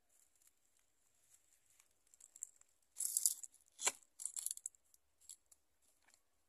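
Close handling noise: faint scattered ticks and rustles, a louder scraping rustle about three seconds in, then a single sharp knock, followed by more rustling and a couple of small ticks.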